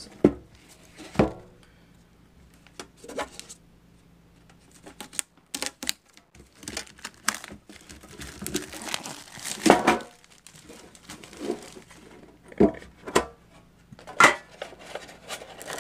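Plastic shrink-wrap crinkling and tearing as it is pulled off a Yu-Gi-Oh trading card tin, with several sharp knocks and clacks as the tin is handled and its lid opened.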